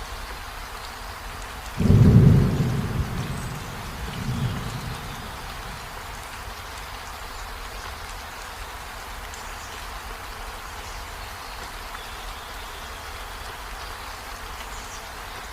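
Steady rain, with a low rumble of thunder that breaks in suddenly about two seconds in and fades away over the next few seconds, and a smaller second swell of rumble just after.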